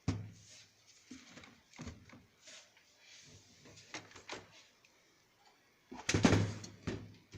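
Handling noise of a desktop computer being worked on: a series of short clicks and knocks, with a louder clatter about six seconds in.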